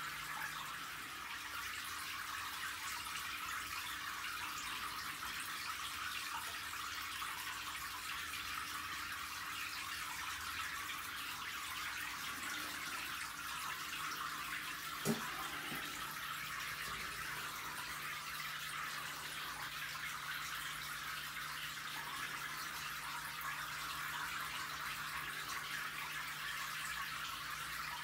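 Steady hiss of running water in an aquarium, with a faint low hum underneath and a single sharp click about halfway through.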